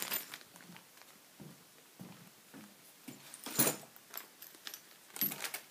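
Handling noise from parts being moved around in a cardboard box: scattered light knocks and rustles, the loudest a sharp knock about three and a half seconds in and a few more near the end.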